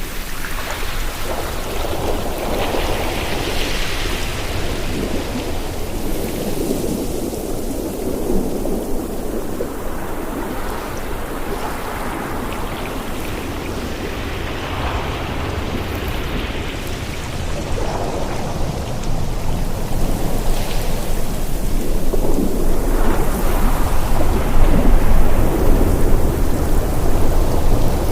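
Sea waves washing onto a shore with wind rumbling over the microphone, swelling and easing every few seconds and growing louder in the last third.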